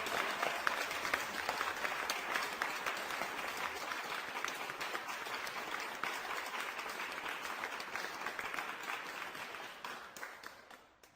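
Audience applause: many hands clapping together, gradually dying away and thinning to a few last claps at the end.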